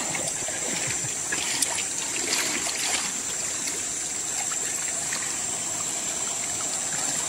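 Shallow river water trickling, with light splashes from hands working in it, over a steady high hiss.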